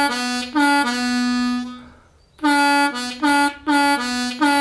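Diatonic blues harp played twice through the same short riff. A few quick notes on a whole-tone-bent hole 2 draw drop to a long held hole 1 draw note.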